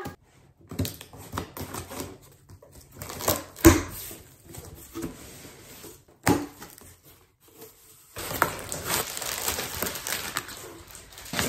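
A cardboard box being cut open with scissors and its flaps handled, giving scattered clicks and rustles with one sharp knock a few seconds in. From about eight seconds in, plastic air-pillow packing crinkles continuously as it is pulled out of the box.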